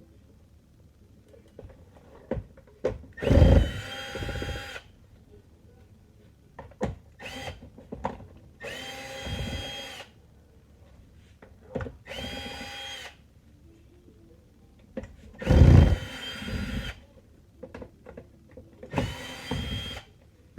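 Electric screwdriver whirring in five short runs of about a second each, backing out screws one at a time, with small handling clicks between the runs.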